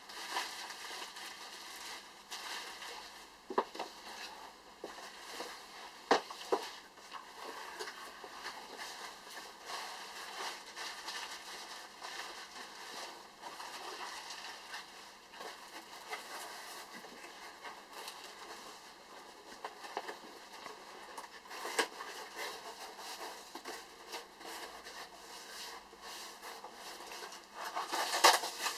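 Scattered light clicks and rustling handling noise, with a few sharper single clicks and a busier patch of clicking near the end, over a faint steady high hum.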